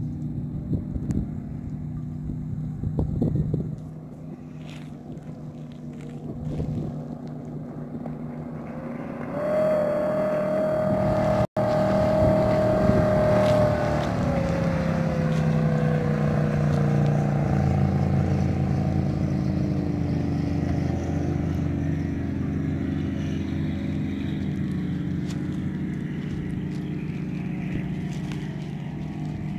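Jet boat engine running at speed as the boat passes on the river: it grows much louder about nine seconds in, its pitch drops as it goes by, and it keeps running as it slowly moves away.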